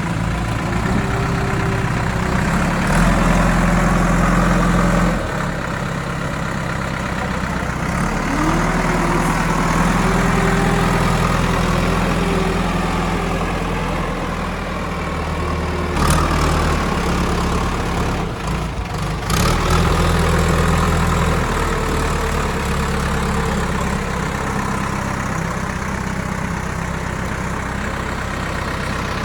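JCB backhoe loader's Kirloskar diesel engine running under working load, its revs swelling and easing several times as the machine digs. A couple of sharp knocks stand out about 16 and 19 seconds in.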